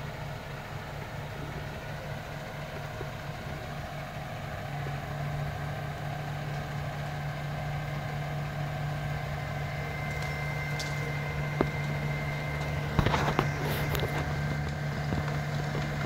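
Engine of a National Crane truck-mounted crane running steadily, picking up slightly about five seconds in as it works a felled tree trunk down. A thin high whine joins about ten seconds in, and a few sharp cracks and clicks come near the end.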